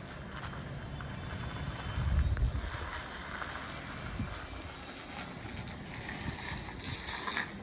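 Wind buffeting the microphone over a low outdoor rumble, with a stronger gust about two seconds in.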